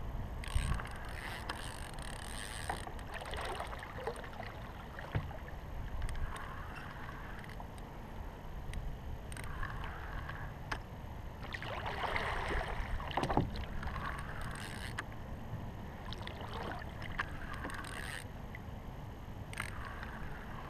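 Water swishing and lapping against a kayak hull in several irregular surges as the boat moves through the water, over a steady low rumble, with a few light knocks.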